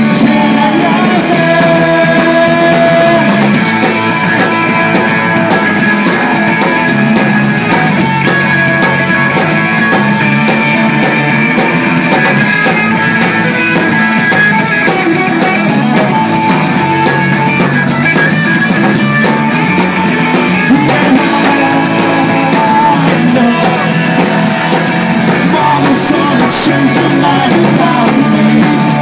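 Live rock band playing loudly and steadily.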